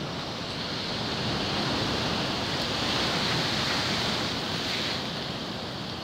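Storm waves of a rough sea breaking on a rocky shore: a steady rushing surf that swells a little towards the middle.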